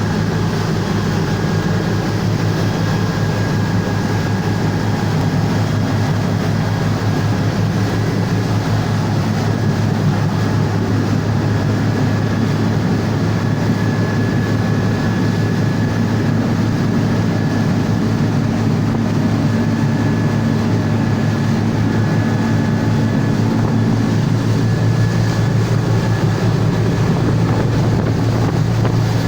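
Cummins marine diesel engine of a boat running steadily, a constant low drone with a slight change in its tone in the middle stretch.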